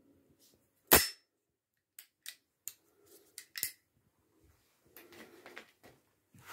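Walther P88 Compact blank pistol's zinc slide snapping shut with a sharp metallic clack about a second in, then several lighter clicks and knocks as the pistol is handled.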